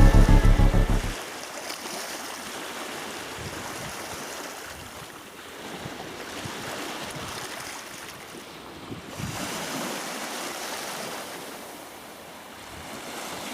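Sea waves washing ashore, a steady hiss of surf that swells and eases slowly every few seconds. Music with a beat plays for about the first second, then cuts off.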